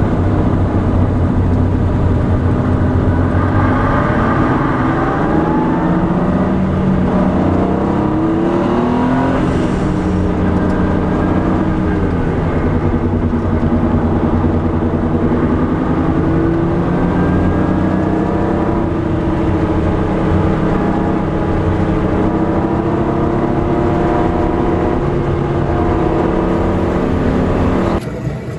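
Porsche 964 driving with a failed wheel hub bearing making a loud abnormal noise, heard inside the stripped-out cabin, which echoes, along with the air-cooled flat-six engine. The tones rise and fall in pitch with speed, and the sound drops away sharply near the end.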